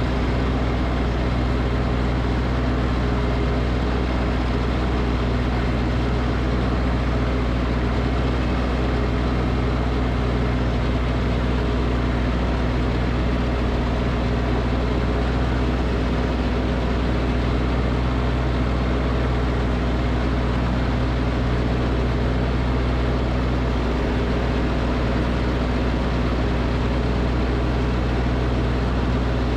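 Snowblower engine running at a steady speed, with an even hum that does not change throughout.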